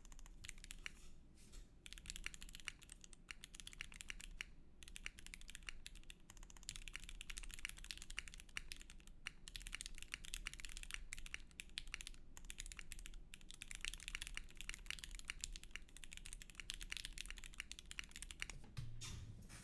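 Custom mechanical keyboard being typed on steadily. It has a KBDfans anodized aluminium case with an aluminium plate, tray mount, lubed Gateron Red Ink linear switches and ABS doubleshot keycaps. The result is a fast, continuous run of keystroke clicks broken by a few short pauses, with a low thud near the end.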